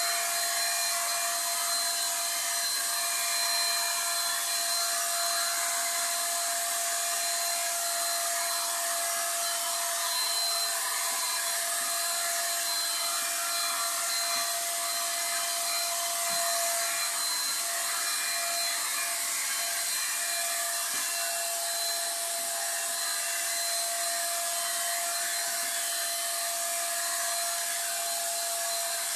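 Handheld electric paint spray gun running steadily, a constant motor whine with the hiss of paint being sprayed, without a break.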